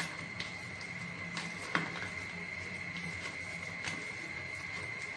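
Boiled sweet potato being mashed by hand in a plastic bowl: faint handling sounds with a few light clicks. Under it runs a steady high-pitched whine.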